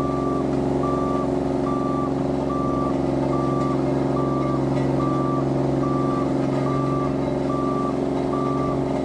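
Road roller's diesel engine running steadily while its back-up alarm beeps, a single high tone repeating a little more than once a second, as the machine reverses.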